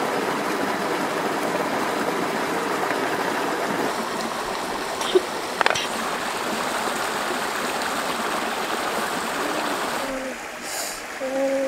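Shallow river running over rocks, a steady rushing of water, with two sharp knocks about halfway. About ten seconds in, the water sound drops away.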